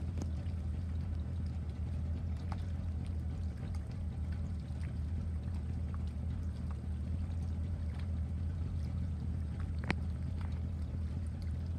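Steady low rumble aboard a drifting pontoon boat on a lake, with a few faint ticks and one sharper click about ten seconds in.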